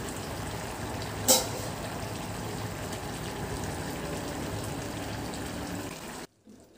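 Thick chickpea and potato curry (chole) simmering in an open kadai on a gas burner, bubbling steadily. There is one sharp click about a second in, and the sound cuts off abruptly near the end.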